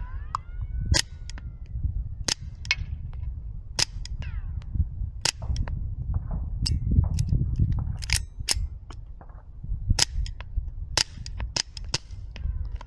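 Suppressed shots from a Walther PPK/S .22 LR pistol fitted with an AAC Halcyon suppressor: about a dozen sharp cracks at irregular intervals, some in quick pairs or runs of three or four near the end. A steady low rumble lies under them and swells around the middle.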